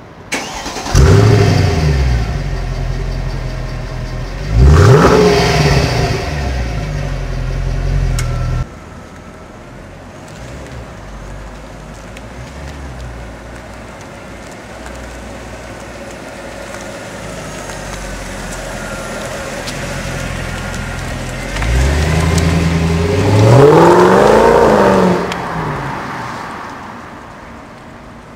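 Mercedes-Benz CL 63 AMG V8 starting up about a second in with a quick flare of revs and settling to idle, then blipped once. After a quieter stretch of idling, the revs rise and fall again over a few seconds near the end.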